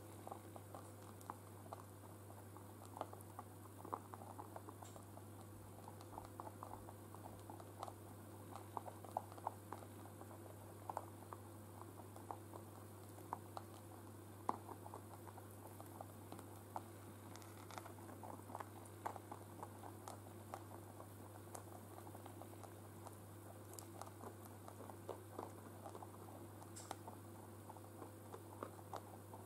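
Rabbits chewing and rooting through hay in a bowl: a quick, uneven run of faint crunching clicks, over a steady low hum.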